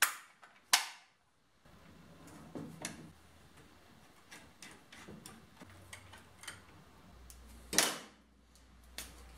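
Sharp clicks and knocks of an old circuit breaker and hand tools being handled on a workbench, with lighter ticks of a screwdriver working the breaker's terminal screws. The loudest knocks come at the very start, just under a second in, and near the end.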